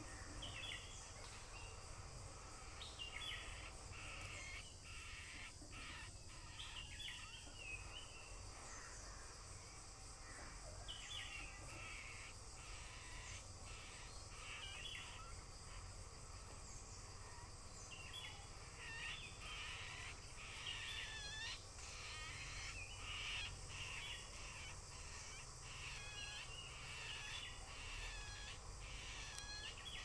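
Harsh, repeated cawing bird calls in short bursts, a few scattered early on and coming thick and fast through the last third.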